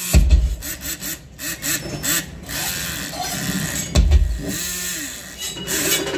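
Sawing and other tool noises in a rasping, repeated rhythm, with a heavy thump at the start and another about four seconds in.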